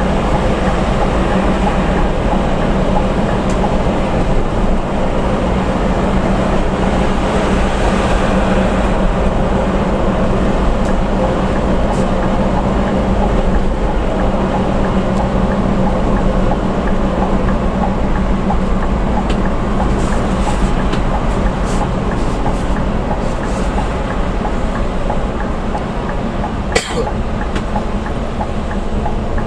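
Steady drone of a Scania coach's engine and tyres at highway cruising speed, heard from inside the cabin, with a low hum throughout. A single sharp click sounds near the end.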